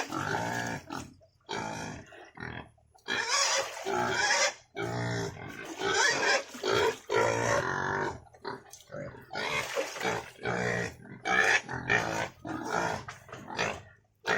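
Pigs grunting and calling in many short, separate bursts, some deep and some high, at feeding time.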